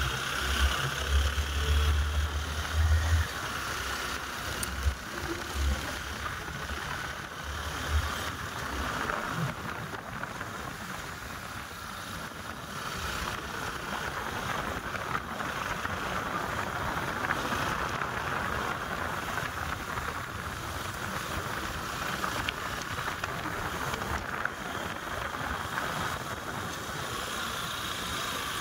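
Steady rushing noise of a motorcycle on the move, with low thumping on the microphone in the first three seconds.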